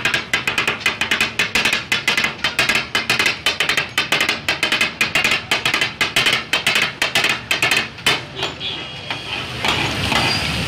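Metal spatulas chopping and clanging rapidly on a large flat steel griddle in kata-kat cooking, about five strikes a second. After about eight seconds the strikes thin out and the hiss of the mix frying on the hot griddle comes up.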